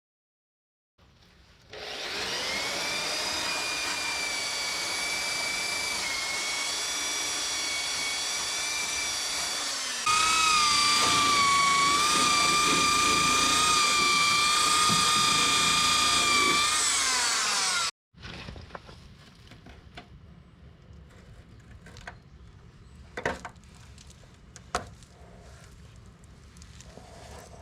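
A handheld power tool running with a steady high whine, louder from about ten seconds in, then winding down near eighteen seconds. After it come a few light clicks and knocks.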